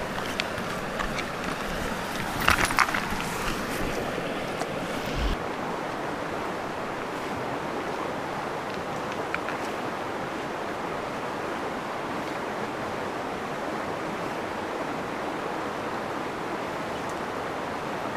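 Steady rushing of a mountain creek flowing over rocks. About two to three seconds in, a few sharp splashes and knocks as a trout is let back into the water, and a single low thump just after five seconds.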